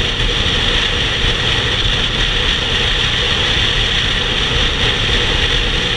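Steady wind rush and low engine drone from a motorcycle cruising at highway speed, picked up by a camera mounted on the bike with wind across the microphone.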